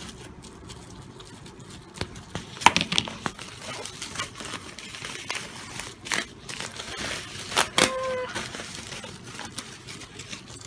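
Plastic packaging being handled: bubble wrap and a plastic courier mailer bag crinkling and rustling, with irregular sharp crackles.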